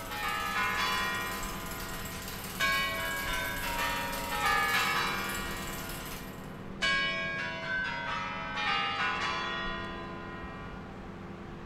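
Kremlin Spasskaya Tower chimes ringing, phrases of many bell notes starting about every four seconds and ringing on between them, fading away near the end.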